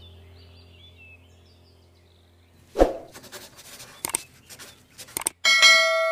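Subscribe-button animation sound effects: a sharp hit about three seconds in, a few quick mouse-like clicks, then a notification bell dinging near the end and ringing on. Before that, faint background music with birdsong fades out.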